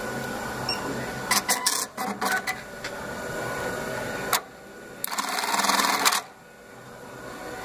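Juki LK-1900B computerized bar-tacking machine sewing a short line tack into red nylon webbing. A few sharp mechanical clicks come first, then about a second of rapid machine stitching that stops abruptly.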